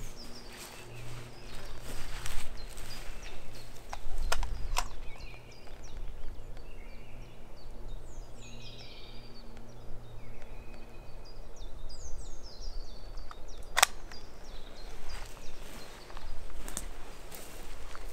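Outdoor woodland ambience: birds singing in short chirping phrases, over a steady low hum that stops about two-thirds of the way through. A few sharp clicks stand out, the loudest about fourteen seconds in.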